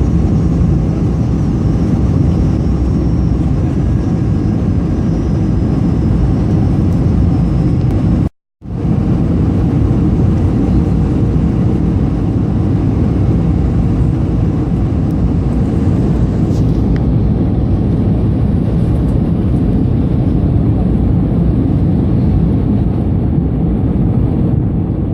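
Steady cabin noise of an Airbus A220-300 airliner: a continuous low rumble from its Pratt & Whitney PW1500G geared turbofans and the airflow past the fuselage. About eight seconds in, the sound cuts out completely for a moment, then resumes unchanged.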